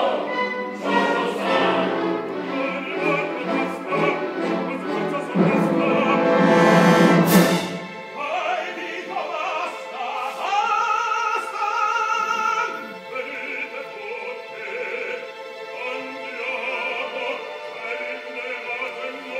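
Live opera: orchestra with chorus and solo voices. A loud, full passage builds to a peak about seven seconds in, then the sound thins to lighter accompaniment under a single voice singing with vibrato.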